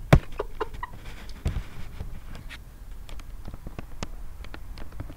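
Close handling noise from the camera held up to a hen: a sharp knock just after the start, a duller thump about a second and a half in, and scattered light clicks and rustles.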